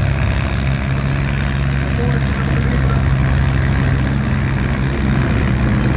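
International 523 tractor's diesel engine under full load, dragging a weight-transfer pulling sled, its engine note held steady.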